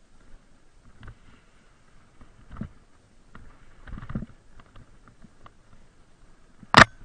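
Mountain bike jolting down a rocky trail, the bike and action camera mount rattling and knocking: scattered thumps, then one sharp, loud knock near the end.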